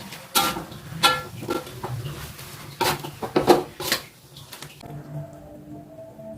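Metal cooking utensil knocking and scraping against a pan, about six sharp clanks with a brief metallic ring in the first four seconds, over a low steady hum.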